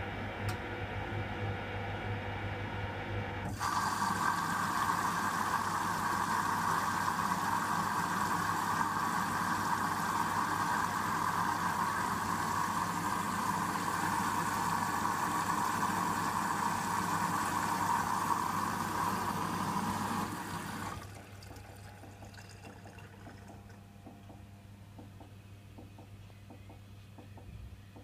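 Hoover WDYN 11746 PG8 washer-dryer during its first rinse: the drum turns with a steady motor hum. A few seconds in, a loud steady hiss of water rushing into the drum switches on. It cuts off suddenly about three quarters of the way through, leaving a quieter hum.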